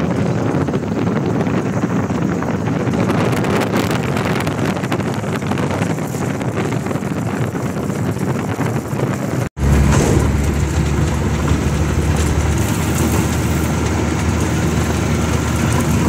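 Cabin noise of a small single-engine high-wing airplane, its engine and propeller running while it rolls across a grass airstrip. About nine and a half seconds in, the sound cuts out for an instant and comes back as a steadier engine drone.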